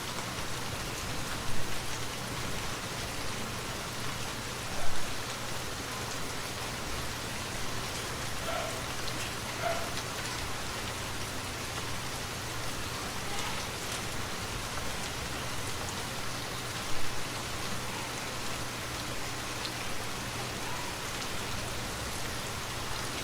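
Steady rain falling, an even hiss of drops, with a faint low hum underneath. A few brief louder sounds stand out, about five seconds in and again around seventeen seconds.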